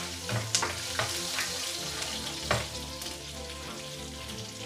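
Green chillies and seeds sizzling in hot oil in a kadai, stirred with a wooden spoon that knocks against the pan a few times.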